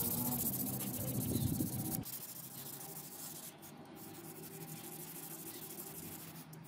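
Sandpaper rubbed quickly back and forth by hand along a steel sword blade, a steady scratchy scrubbing: 220-grit paper at first, then, from about two seconds in, quieter strokes with finer 400-grit paper.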